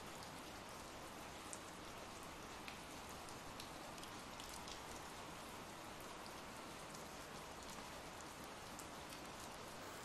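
Faint, steady ambient rain: an even hiss of rainfall with a few soft drop ticks.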